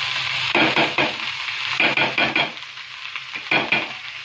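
Oil and tempering spices sizzling on a hot tava as cooked rice is tipped onto it from a steel bowl, for jeera rice. Over the steady sizzle come three short bursts of scraping clatter as the rice is pushed out.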